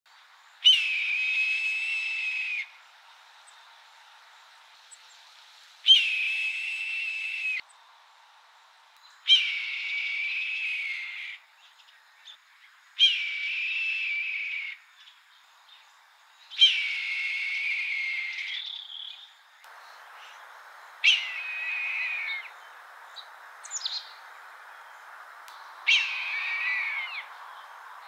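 Red-tailed hawk screeching: seven long, shrill screams, each about two seconds with a sharp start and a slight fall at the end, spaced four to five seconds apart.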